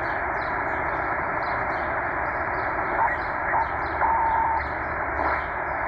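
Tecsun H-501x shortwave receiver's speaker hissing with band noise in upper-sideband mode as it is tuned down through the 20-metre amateur band. Brief whistling tones sound as it passes signals, one held for about half a second near the middle. A bird chirps repeatedly and faintly behind it.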